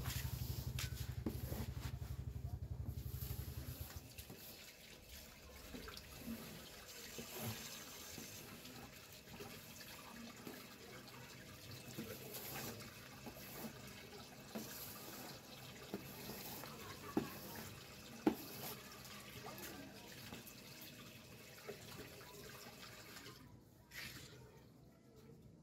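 Water from a tap splashing into a stone washbasin as hands are washed in it, with a few sharp knocks about two-thirds of the way through. A loud low hum fills the first four seconds, then cuts out.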